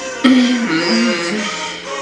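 Music playing: a pop song with a male voice singing over it. It gets suddenly louder about a quarter of a second in.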